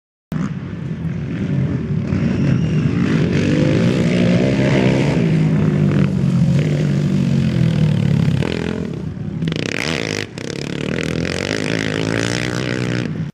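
Racing quad (ATV) engines revving hard as they pass, the pitch rising and falling with throttle and gear changes. There is a short drop in level about ten seconds in.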